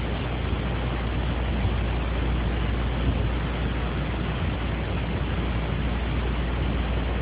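Steady hiss with a low hum underneath: the background noise of a phone voice recorder running in a room, with no distinct event.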